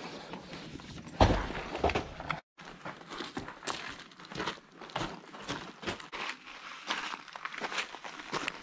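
Hikers' footsteps crunching on gravel and loose rock in a steady walking rhythm. Early on there is a louder scuffing rustle, then the sound cuts out for a moment before the steps begin.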